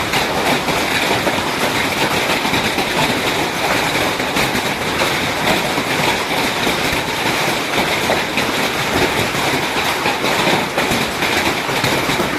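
Large hailstones falling with heavy rain, a dense, steady clatter of countless small strikes.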